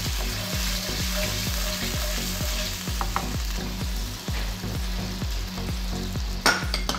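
Minced meat in beef stock and tomato-chilli sauce sizzling in a wok as the stock heats toward a boil, stirred with a wooden spoon at first. One sharp knock about six and a half seconds in.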